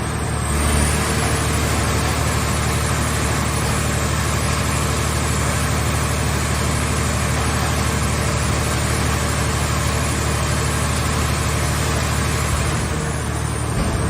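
Car scrap baler's machinery running steadily: a continuous low engine-like drone with a steady hiss over it, changing slightly about half a second in and again near the end.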